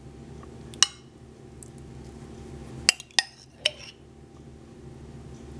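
A metal spoon clinking against glass: four short, sharp clinks with a brief ring, one about a second in and three close together around three seconds in.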